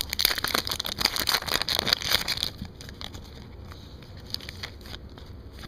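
Crinkling and crackling of a trading-card pack's plastic foil wrapper being handled, loud for about two and a half seconds, then only faint handling clicks.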